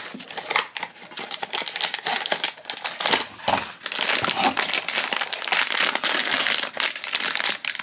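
Foil-lined blind-box pouch crinkling and crackling as it is pulled from its cardboard box and torn open by hand, not by its tear strip. The crinkling grows denser and louder about halfway through as the pouch is ripped.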